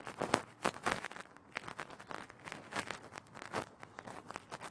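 A hand squeezing and pressing crumbly, ghee-moistened urad dal and jaggery powder into a laddoo ball: a run of irregular soft crunching and crackling, several a second.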